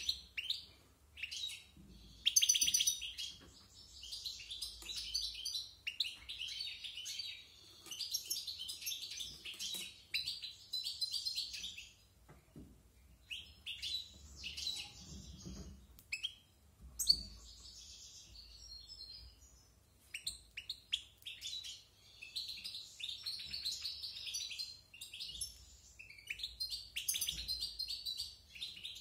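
European goldfinch singing a fast, varied twittering song in long phrases broken by brief pauses. A bird of about a year running through its song.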